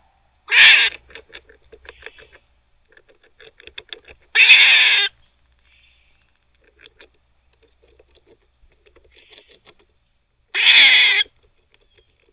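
Eastern gray squirrel barking three times, each call a loud, harsh half-second burst, several seconds apart. Between the barks come faint quick clicks of its teeth gnawing.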